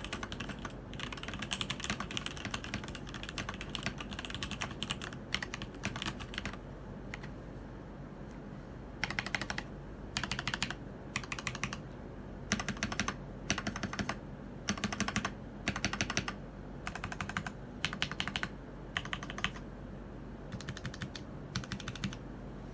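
Keydous NJ80 mechanical keyboard fitted with TTC ACE switches, typed on quickly in the sped-up demo section. A dense run of keystroke clacks lasts the first six or seven seconds, then come rapid bursts of keystrokes with short pauses between them.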